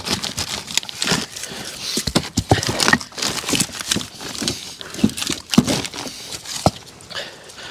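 Irregular wooden knocks and clatter of split firewood logs being handled and stacked, several sharp knocks a second at first, thinning out later.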